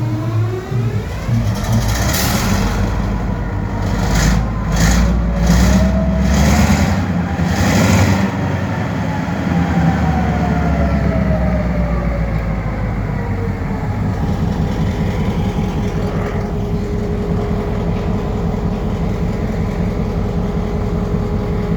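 Locomotive engine running and rising in speed over the first couple of seconds, with a run of short noisy bursts about two a second between roughly two and eight seconds in, then settling to a steady run with a steady whine.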